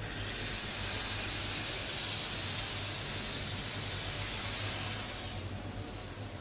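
A drawing tool dragged across paper in one long straight stroke: a steady scratching hiss that swells up in about half a second and fades out about five seconds in, over a low steady hum.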